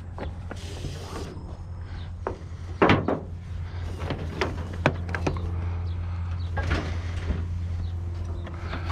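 Scattered knocks and clicks from handling a refrigerator and tie-down rope in a pickup truck bed, the sharpest about three seconds in, over a steady low hum.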